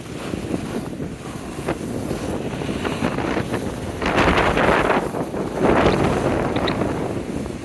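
Wind buffeting the microphone as a steady rumble, with two stronger gusts about four and six seconds in.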